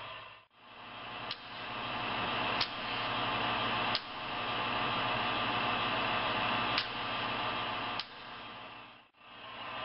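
A steady engine-like drone from a running HO model train, with about five sharp clicks spread through it. The drone drops out briefly twice, about half a second in and near the end.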